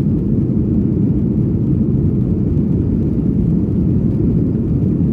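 Boeing 757-200 jet airliner during takeoff: a steady, loud low rumble of engine and airframe noise as heard from inside the cabin.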